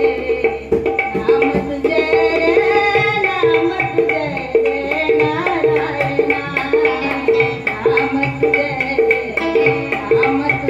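Marathi devotional song: tabla keeping a steady rhythm under a melody line.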